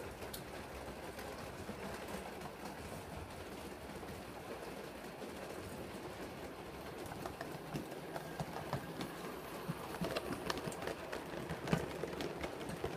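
A 7mm-scale model train rolling in, its wheels clicking over the rail joints and pointwork. The clicks come thicker and louder from about halfway through.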